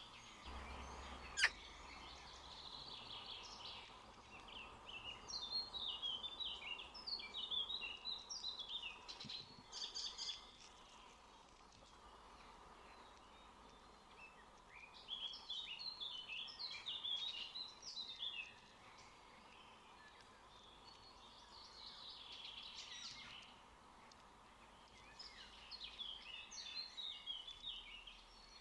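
Birds chirping and singing in several bursts of quick, stepping high notes over a steady faint hum. One sharp click comes about a second and a half in.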